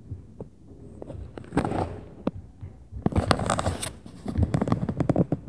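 A run of quick knocks and thuds, which the recorder takes for the upstairs neighbours stomping, mixed with two bursts of close scraping and rustling: one about a second and a half in, and a longer one from about three to four seconds in.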